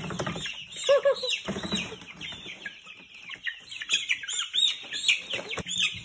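A brood of young Cornish cross broiler chicks peeping, many rapid overlapping peeps, each a quick falling note.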